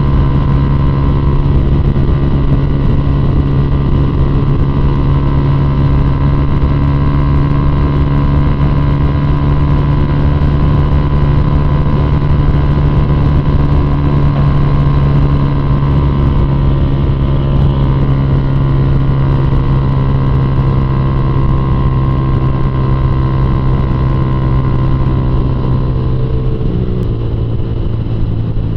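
Honda CG Fan 150's single-cylinder four-stroke engine running at a steady cruise through an aftermarket Fortuna Mini Trioval F1 exhaust, a loud rumble; its fiberglass silencer packing has burnt in, which makes the rumble stronger. Near the end the revs drop as the bike slows.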